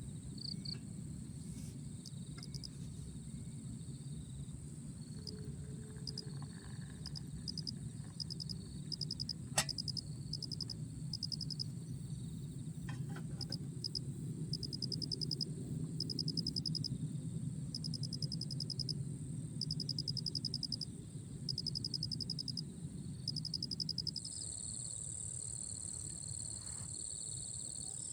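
Insects chirping and trilling: a steady high-pitched whine with rapid pulsed chirps in regular runs over a low steady rushing noise, the whine growing louder near the end. A single sharp click sounds about ten seconds in.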